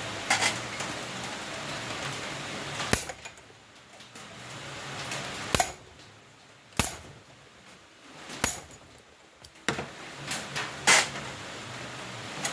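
Metal tools and engine parts clinking and knocking as they are handled, about seven sharp, separate strikes at uneven intervals, over a steady hiss.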